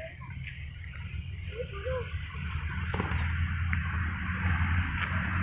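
A few short soft squeaks from a pet otter over a steady low rumble that grows louder after about three seconds.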